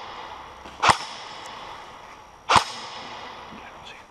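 Two single airsoft gun shots, sharp cracks about a second and a half apart, each followed by a short echo.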